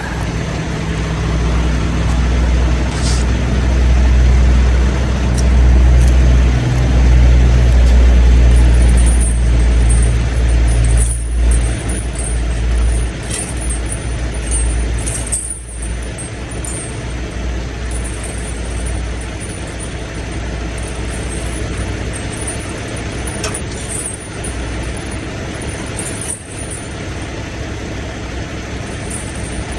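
Heavy diesel truck engine running close by: a deep, steady rumble, loudest for about the first twelve seconds, then settling into a quieter steady drone.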